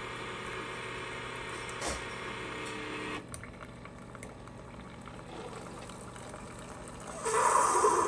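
Keurig K-Compact single-serve coffee maker brewing: its pump running and coffee streaming into a ceramic mug. The sound drops abruptly about three seconds in, then gets much louder near the end as the brew finishes.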